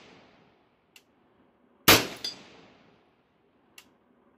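A single AR-15 rifle shot in .223/5.56, followed about a third of a second later by a short metallic ring as the bullet strikes a steel gong 100 yards downrange; that delay is the sign of a hit on the far steel.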